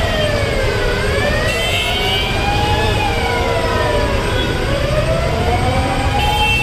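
A siren wailing, its pitch slowly rising and falling about every two to three seconds, over a steady low rumble of street traffic.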